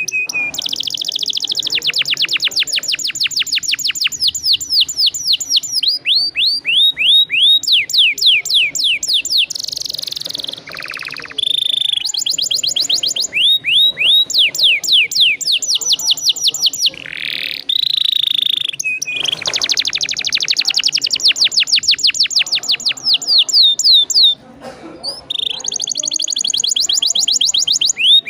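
Domestic canary singing long rolling trills: fast runs of repeated high notes lasting several seconds each, broken by short whistled notes and brief pauses.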